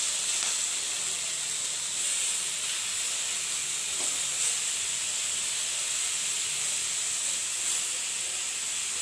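Brinjal slices frying in hot oil in a kadai: a steady sizzle with a few faint pops.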